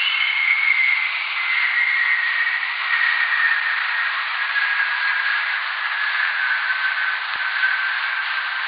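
Very-low-frequency radio recording of a multi-hop whistler, lightning's radio burst bounced back and forth along Earth's magnetic field lines, played as sound. A long, slowly falling whistle sits over steady radio hiss.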